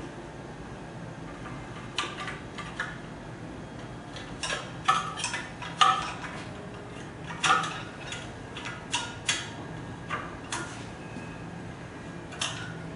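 Irregular metallic clicks and clinks of a screwdriver and screw working against the metal head of a heat press as a plate part is screwed into place.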